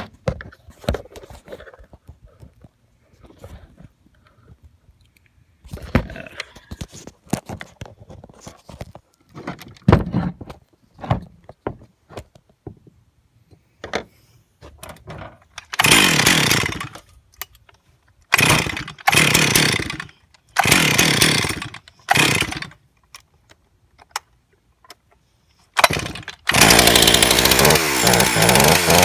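Stihl MS 362 two-stroke chainsaw being started: after some knocks and clicks of handling, it fires for about a second at a time on several pulls, then catches about 26 seconds in and keeps running. Its throttle linkage has just been reset under the carburetor lever, so the saw is responding to the throttle again.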